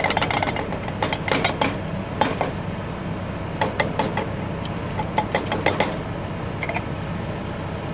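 Irregular clicks and knocks of a tin can and utensils against a cooking pan as a can of Rotel diced tomatoes is emptied into cheese sauce. A steady low hum runs underneath.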